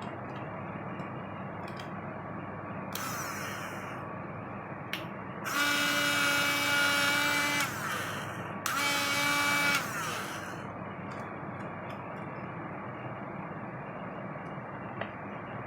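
Electric drill run twice at steady speed: a high whine of about two seconds beginning roughly five and a half seconds in, then a second run of about a second. The rest of the time only a steady background hiss is heard.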